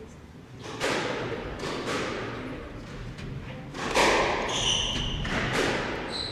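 A squash rally: the rubber ball is struck hard by rackets and smacks off the court walls, each hit ringing in the court, the loudest about four seconds in. Sneakers squeak on the wooden floor between shots.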